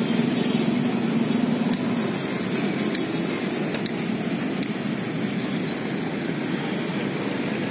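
Steady road traffic noise from passing cars and motorbikes, with an engine hum that fades about two seconds in.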